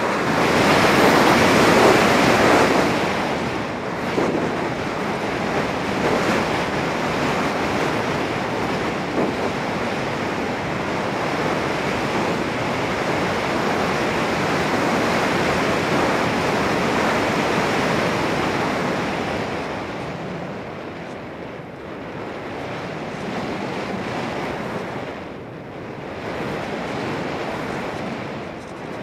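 Airflow rushing over a Volantex Phoenix 1600 glider's fuselage and onboard camera microphone in flight, a steady rush with no motor whine heard. It is loudest in the first few seconds, while the glider dives nose-down, and eases off twice near the end.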